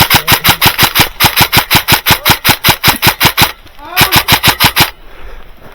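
Airsoft rifle firing on full auto, about nine shots a second: one long burst, then after a short pause a second burst of about a second.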